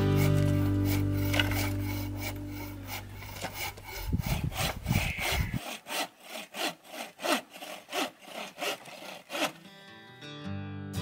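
Hand saw cutting a dry dead branch with quick back-and-forth strokes, about three a second. Acoustic guitar music fades out at the start and comes back near the end.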